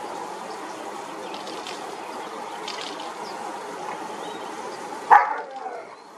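A dog barks once, short and loud, about five seconds in, over a steady rushing background noise.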